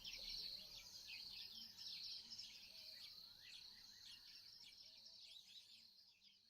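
Faint outdoor bush ambience: a steady high chirring with many short chirps and a few gliding bird call notes over it, fading out near the end.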